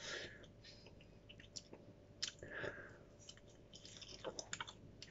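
Faint close-up chewing of a chocolate superhot chilli pod: scattered wet mouth clicks and smacks.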